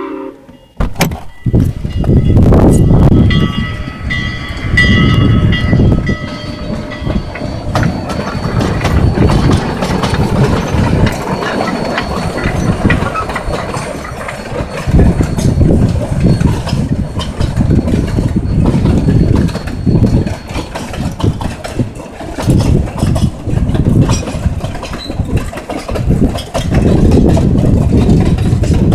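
Heritage passenger train of wooden coaches rolling past, with a loud, uneven low rumble of the cars on the rails. For several seconds near the start, a steady high chord-like tone sounds over the rumble.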